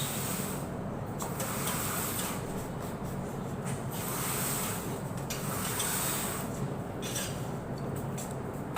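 A delivery vehicle on the move: steady engine and road noise with a low hum and scattered light rattles.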